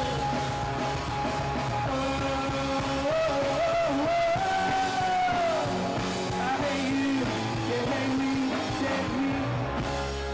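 Rock band playing: a male voice singing a held, gliding melody over electric guitars.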